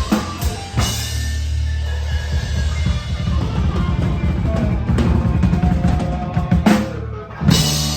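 Live band playing loudly with the drum kit to the fore: kick and snare hits over a sustained low bass, with cymbal crashes about a second in and twice near the end.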